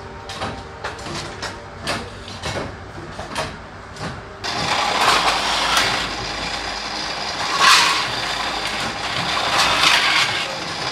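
A few seconds of light scattered clicks and taps, then a pillar drill starts up suddenly and runs loudly, drilling holes through an aluminium ladder rail; its noise swells twice as it works.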